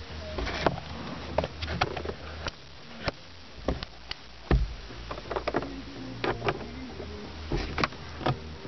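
Irregular clicks and knocks from hands and camera being handled inside a car's cabin, over a low steady hum.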